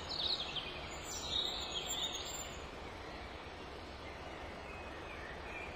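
Outdoor background noise with a steady low rumble, and a few short bird chirps in the first two seconds or so.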